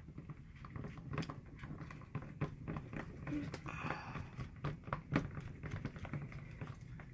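A spoon stirring a glue slime mixture in a bowl, with irregular light clicks and taps of the spoon against the bowl.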